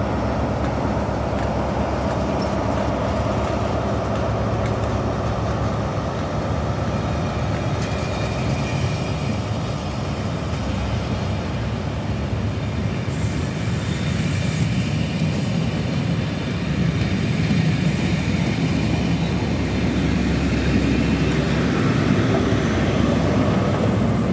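Class 43 HST power cars' diesel engines working under power as a test train pulls away from a stop, with the coaches rolling past on the rails. The rear power car's engine grows louder in the last several seconds as it draws level.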